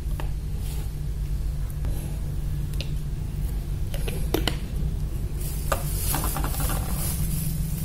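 Handling noise: a few sharp light clicks and knocks, with a stretch of rustling about five to seven and a half seconds in, over a steady low hum.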